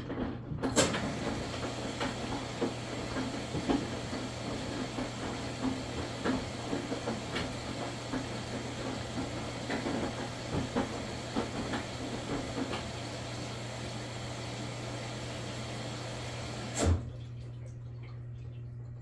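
Maytag washing machine running: a steady motor hum under a busy wash noise full of irregular knocks and clicks. The wash noise starts with a click about a second in and cuts off with a clunk near the end, leaving the hum.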